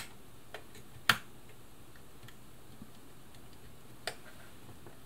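A few sharp plastic clicks and taps, the loudest about a second in, as the circuit board of a Bernina 1000 sewing machine foot controller is pushed into the locating grooves of its plastic housing.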